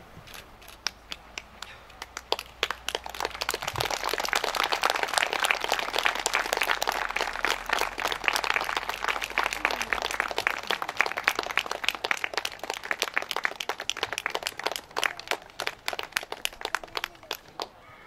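Crowd applauding, building up about two seconds in and thinning out near the end.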